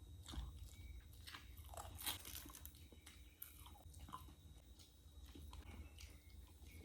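Faint crunchy chewing and biting of food, a scatter of small crackles and clicks over a low hum.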